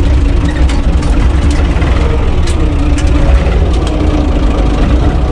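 UTB 445 tractor's diesel engine running steadily, heard from inside the cab, with a few brief clicks over it.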